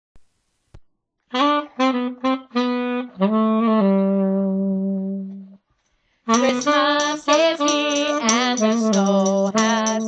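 Saxophone playing a melody. It plays a few short notes, then a long held low note that stops about five and a half seconds in. After a brief pause it goes on with a run of quicker, wavering notes.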